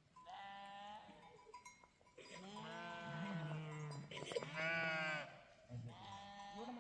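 Sheep bleating: several wavering calls from more than one animal, two of them overlapping in the middle.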